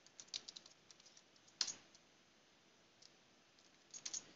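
Computer keyboard typing, soft and sparse: a quick run of keystrokes in the first second, one sharper key press about one and a half seconds in, then a short run of keystrokes near the end.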